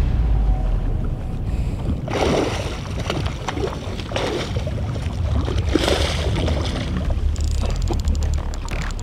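A boat moving on the water: a steady low rumble with wind and water washing against the hull, swelling in surges about two, four and six seconds in.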